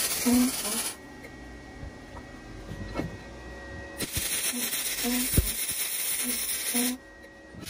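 MIG welding arc crackling and sizzling as an eye hook is welded onto a steel pole: one weld stops about a second in, and a second weld runs for about three seconds from roughly four seconds in.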